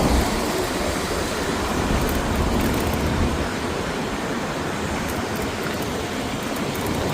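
Steady rushing noise of riding a bicycle through heavy rain, with rain and the hiss of tyres on a soaked road.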